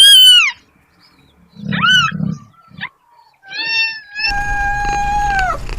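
Cat meowing repeatedly: three short meows that rise and fall in pitch, then a longer, steady-pitched meow that drops in pitch as it ends.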